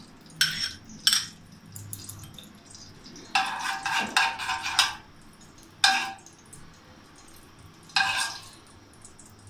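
Kitchen handling at an aluminium wok: five sharp clinks and rattles from a plastic bottle and glass bangles, with a longer rattle about three and a half seconds in and quiet between.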